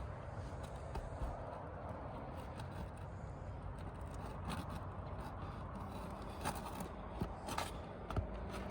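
Scraping and a few sharp clicks of a roofing pry tool being worked under asphalt shingles to pull out nails, over a steady background noise.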